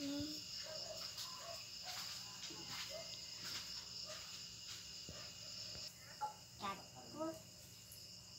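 Crickets trilling steadily in high, thin tones, one of the trills stopping about six seconds in. Faint short voice sounds and a few light clicks come and go, more of them near the end.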